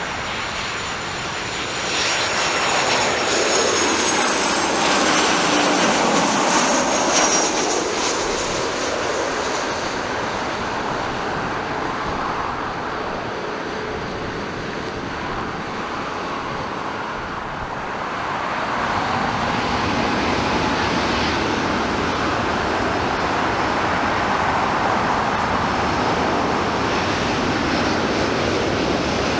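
Airbus A350-900's Rolls-Royce Trent XWB jet engines running as the airliner rolls along the runway, with thin high whines gliding upward in the first seconds. The engine noise grows louder about two seconds in, eases, then builds again about two-thirds through and holds steady.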